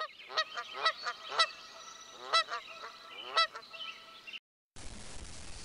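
A series of loud bird calls, about six in the first three and a half seconds, each sweeping up in pitch as it starts. The calls stop suddenly about four seconds in, and after a brief gap a steady background hiss begins.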